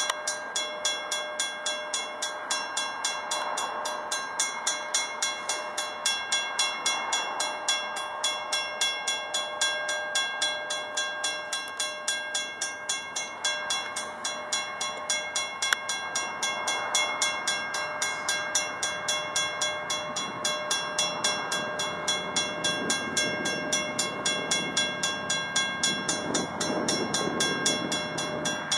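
Railroad grade-crossing bell ringing in steady, rapid strokes while diesel locomotives approach, their rumble growing louder near the end.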